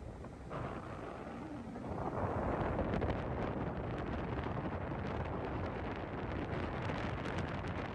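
Wind buffeting the camera microphone, a rumbling rush with crackles, growing louder about two seconds in.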